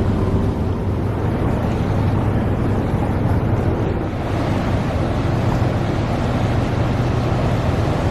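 Steady rush of turbulent water churning in a filling canal lock, mixed with wind on the microphone and a low steady hum.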